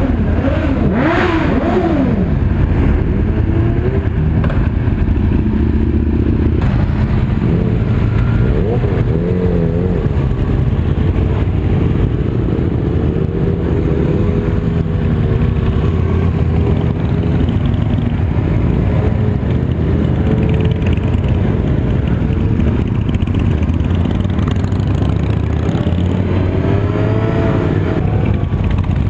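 Several motorcycle engines running together as a group sets off: a steady close engine rumble, with other bikes revving and pulling away, their pitch rising and falling.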